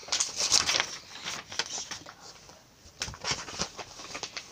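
Paper rustling and crinkling in irregular bursts as calendar pages are pulled out of a planner, with a quieter pause in the middle.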